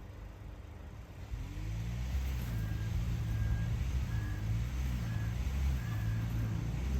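Skoda Karoq engine pulling away and accelerating: quiet running at first, then from about a second in the engine note rises and grows louder and stays up.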